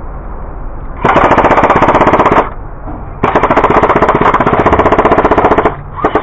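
Airsoft gun firing rapid full-auto bursts close by: one of about a second and a half starting a second in, a longer one of about two and a half seconds, and another starting just at the end.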